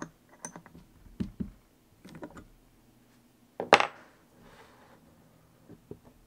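Scattered small metal clicks and knocks as a thread tap is fitted into a keyed drill chuck and set over an aluminium part, with one sharp clank, the loudest sound, about three and a half seconds in.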